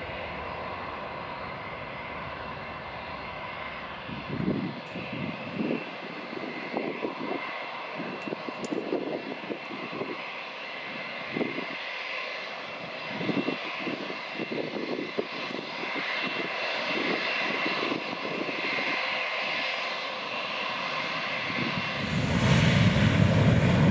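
Twin-engine jet airliner's engines at takeoff thrust during the takeoff roll and climb-out, a steady rushing noise heard from across the airfield. Irregular low rumbling pulses run through it from about four seconds in, and it grows louder with more low rumble near the end.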